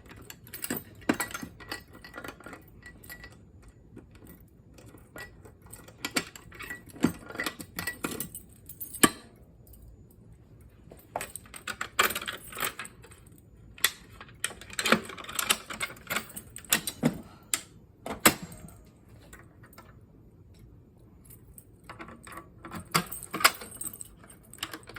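Fire alarm pull stations being handled: irregular clicks, clacks and rattles in uneven clusters, with brief pauses about ten and twenty seconds in.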